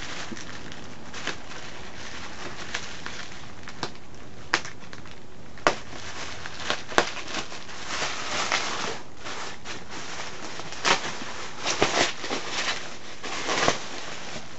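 Plastic bubble wrap rustling and crinkling as it is pulled off a box, with sharp crackles every second or two.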